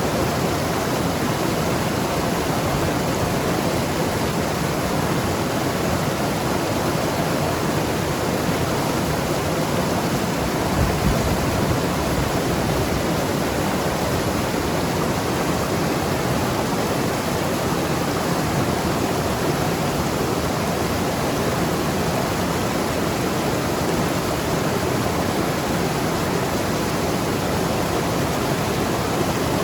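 Mountain river rushing and gurgling over rocks in a steady, dense wash of water noise, with a brief deeper surge about eleven seconds in.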